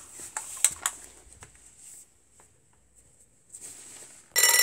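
Clicks and rustling from a phone being handled, then a short hush, then a loud alarm-clock ring that starts abruptly near the end.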